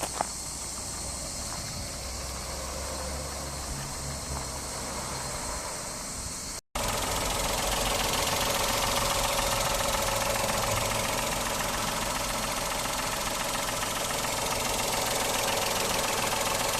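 Toyota Passo's small petrol engine idling steadily. A quieter low hum runs for the first several seconds, then after a sudden cut the idle comes in louder and closer, with a steady mid-pitched tone.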